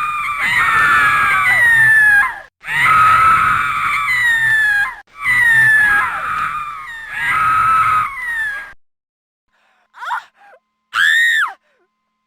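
A person screaming: four long, high-pitched screams in quick succession, each sliding down in pitch, followed by two short cries near the end.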